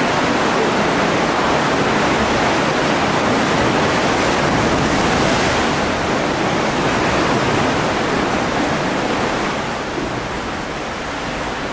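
Steady rush of ocean surf washing into a sea cave, easing slightly over the last few seconds.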